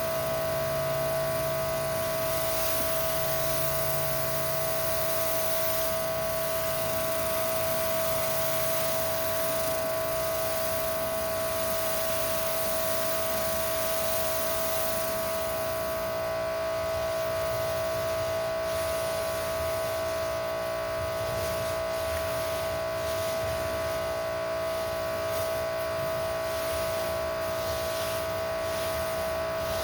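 Electric pressure washer running with a steady high whine, feeding a 15-inch surface cleaner, with the hiss of water spray. The electric unit puts out only about 1900 psi, too little pressure for the surface cleaner to work well.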